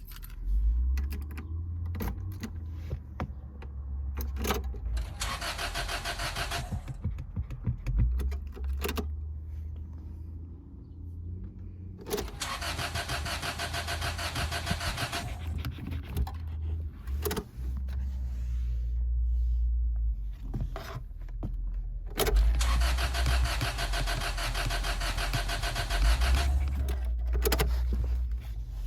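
Car engine being cranked by the starter three times without catching: about two seconds, then twice about three and a half seconds, with sharp clicks between the attempts.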